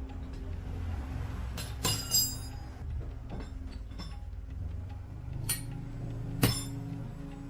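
Several sharp metallic clinks of metal knocking on metal, the loudest about six and a half seconds in, over a steady low hum.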